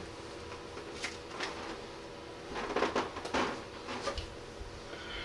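Room tone with a faint steady hum, broken by a few short soft rustling and knocking noises, loudest in a cluster about halfway through.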